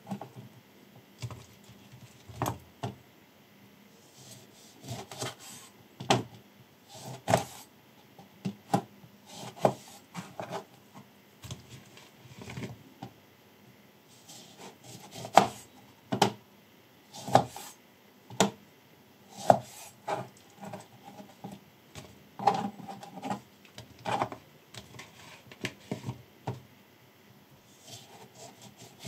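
Chef knife slicing lemons in half on a plastic cutting board. The blade knocks sharply on the board at the end of each cut, roughly once a second at an uneven pace, with softer sounds of the fruit being pushed and handled in between.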